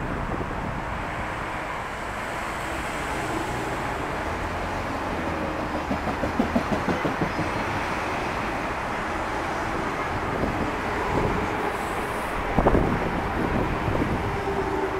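Electric passenger train running past: a steady rumble of wheels on rails, with a quick run of wheel clicks over the rail joints about halfway through and a single louder clack near the end.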